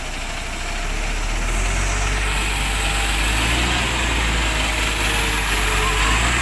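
Diesel engine of an XCMG/Schwing transit concrete mixer truck running steadily while the drum discharges concrete, growing a little louder about a second in and then holding.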